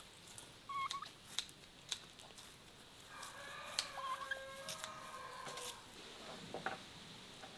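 Domestic fowl calling: a short call about a second in, then one long call of about two and a half seconds, with short sharp chirps over it.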